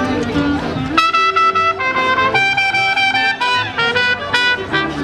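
Brass music playing a melody in held notes and short phrases, several notes sounding together.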